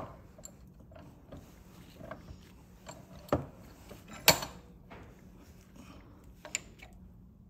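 Scattered metallic clicks and clanks of hand tools and parts being handled during power steering pump work, with one sharp clank a little over four seconds in.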